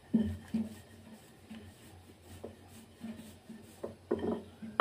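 A rolling pin rolling puri dough out on a marble counter: soft, irregular knocks and rubs, a couple each second.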